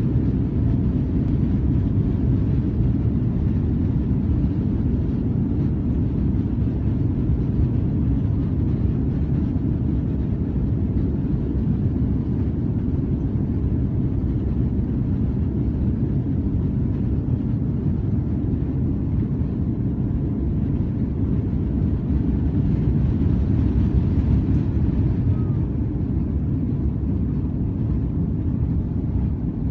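Airliner cabin noise during the takeoff run: the engines at takeoff power and the runway rumble blend into a steady deep rush, a little louder about 22 to 25 seconds in.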